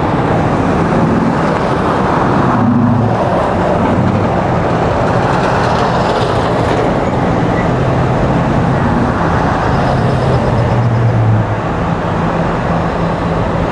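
Motorcade vehicles driving past close by, a black van, an ambulance and police SUVs: a steady rush of engines and tyres on the road with a low engine hum.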